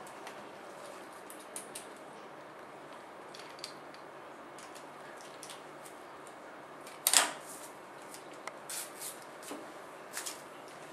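Small clicks and plastic rustling from gloved hands handling blood-test supplies, with a sharp click about seven seconds in and a few more soft clicks after it, over a steady faint room hiss.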